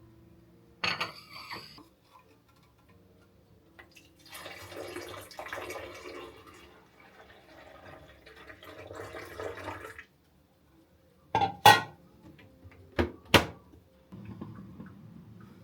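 Kitchen handling sounds: several seconds of a rushing noise like liquid being poured or running, then a few sharp clinks of dishes and utensils knocking together.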